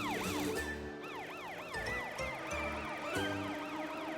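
Cartoon police car siren wailing in quick rising-and-falling sweeps, about three a second, over background music.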